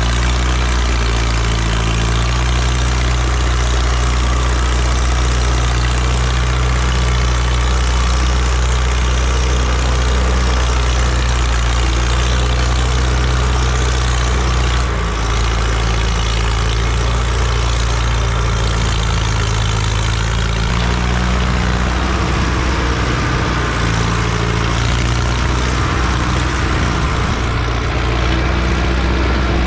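Mahindra Arjun 605 DI tractor's four-cylinder diesel engine running steadily under heavy load, hauling a soil-laden trolley. Its note changes about halfway through and turns rougher and less even in the second half.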